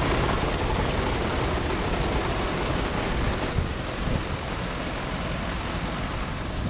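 1978 Ford 7700 tractor and New Holland 850 round baler running in the hay field, a steady mechanical noise mixed with wind noise on the microphone. It eases off a little about halfway through.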